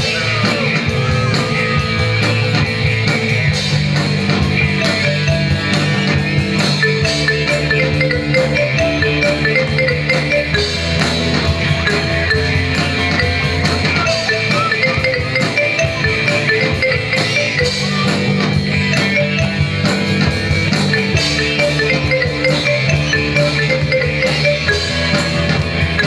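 Live rock band playing an instrumental break: drum kit, electric guitars, bass and keyboard, with no singing.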